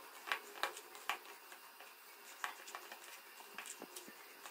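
A hand mixing mashed boiled potato and shredded chicken with spices in a bowl: faint, irregular soft clicks and squishes.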